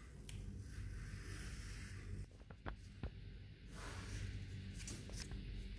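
Pencil scratching on paper in two spells as lines are drawn along a ruler, with a few light clicks in between.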